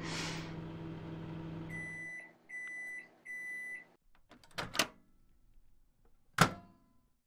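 Microwave oven running with a steady hum that stops about two seconds in. Three beeps follow, signalling that the heating is done. Then come two sharp clacks from the door, the second one louder.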